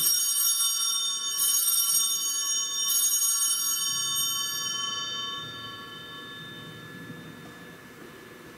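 Altar bells rung three times during the consecration at Mass, the strokes about a second and a half apart, each ringing with many high tones that fade out over a few seconds.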